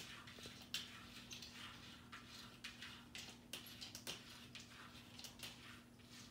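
A cat's claws scratching and tapping at the plastic water tank of a teardrop humidifier, in short, irregular scratchy strokes over a faint steady low hum.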